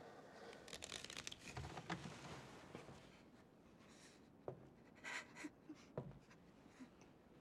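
Hushed room tone with faint rustling of cloth, a few soft thuds and small clicks as people shift about.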